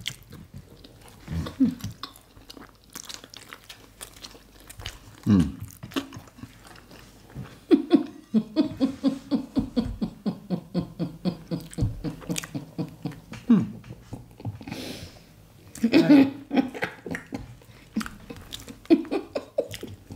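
Close-miked chewing and wet mouth smacking of people eating soft food (mashed beans with bread and fried plantain), with a quick run of smacking clicks in the middle. A few short vocal sounds come between bites.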